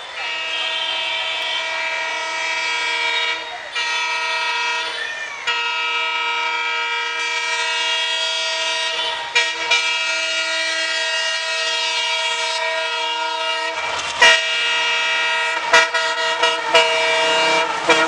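WDM3A diesel locomotive's multi-note air horn honking almost without pause as the train approaches at speed, with only brief breaks. In the last few seconds the horn comes in shorter blasts, broken by several sharp knocks as the train draws level.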